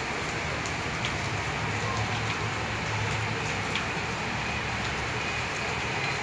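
Rain falling: a steady hiss with scattered ticks of individual drops, over a low steady rumble.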